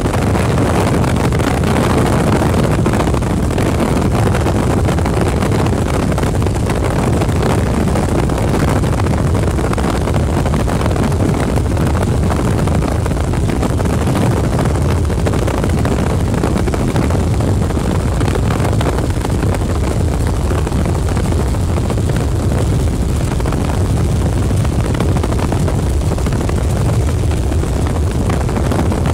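Helicopter in flight heard from aboard: a loud, steady drone of engine and rotor.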